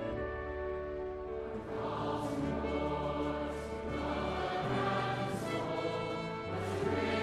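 Slow background music with choir voices over held chords and sustained bass notes.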